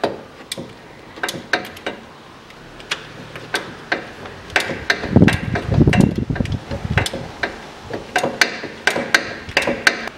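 Ratchet wrench clicking in irregular runs as the manual gearbox's filler plug is screwed in and tightened, with a denser, faster stretch of clicking around the middle.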